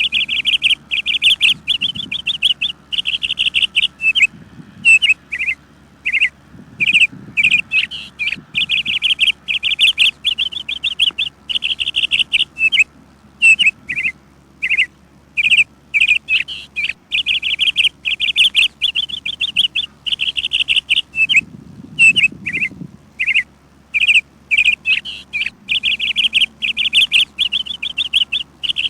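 Birds chirping: fast runs of high, bright chirps one after another with short pauses, going on throughout.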